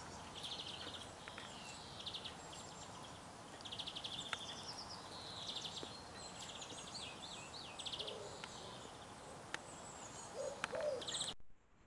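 Small songbirds chirping and twittering, with short trilled phrases repeated every second or so, and a couple of lower calls near the end. The sound cuts off suddenly just before the end.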